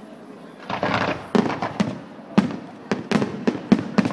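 Aerial fireworks shells bursting overhead. After a brief lull, a quick run of sharp bangs and pops follows, about a dozen in three seconds.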